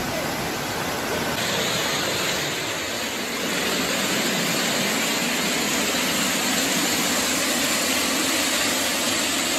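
Floodwater rushing in a steady, loud roar of water noise. About a second and a half in it changes to a fuller rush as muddy torrent water pours through a gap in a wall.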